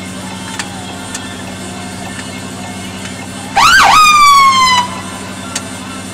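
Rescue truck's siren sounded in one short burst of just over a second: a couple of quick up-and-down sweeps, then a held tone sliding slightly lower before it cuts off. A steady low engine hum runs underneath.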